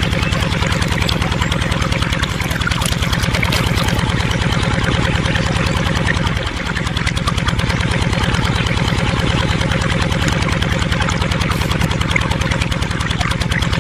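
Small electric motor of a miniature water pump running steadily with a rapid buzz, dipping briefly about halfway through.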